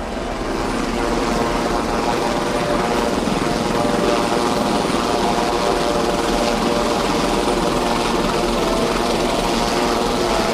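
A steady, loud mechanical drone like an aircraft or helicopter engine. It grows louder over about the first second, then holds steady.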